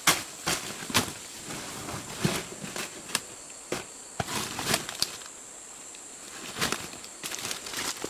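Irregular sharp crackles and snaps of dry leaf litter and plant stems being handled and stepped on, with a short lull a little past the middle. A steady high insect drone sounds underneath.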